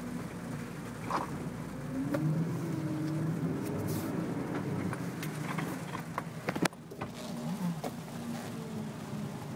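Jeep Wrangler LJ Rubicon's 4.0-litre straight-six engine pulling at low speed over a rough trail, its pitch rising and falling with the throttle. Scattered knocks ride over it, the loudest a sharp clunk about two-thirds of the way through.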